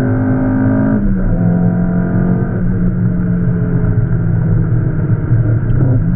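Peugeot 306's 1.8 XU7JP4 four-cylinder engine on individual Jenvey throttle bodies, running hard on track as heard from inside the cabin. Its note drops sharply about a second in, holds slightly lower, and rises again near the end.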